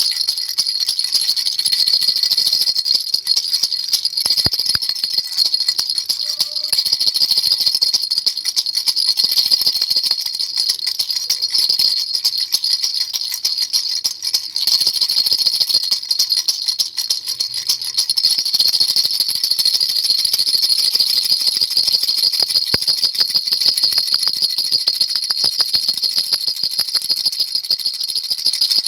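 Baby rattle shaken continuously, a dense, high jingling of many rapid small clicks with no break.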